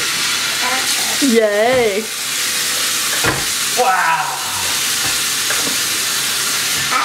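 Steady sizzling hiss of kitchen noise throughout, like food frying. Over it a voice gives a short wavering call about a second in and a brief falling one around four seconds, with a single sharp click in between.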